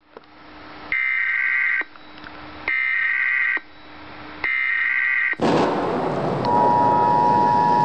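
Emergency weather-radio alert: three buzzy bursts of the digital alert header, each about a second long, then a loud hiss, and a steady alert tone starting about six and a half seconds in. This is the signal that a warning broadcast, here a flood warning, is about to follow.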